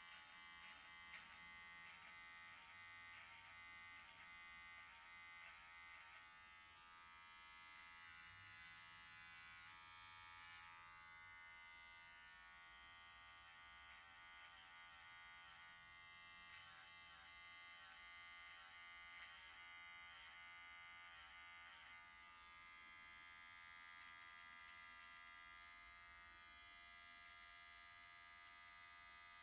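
Electric hair trimmer buzzing faintly and steadily as it edges a hairline, with runs of faint repeated ticks in the first few seconds and again a little past the middle.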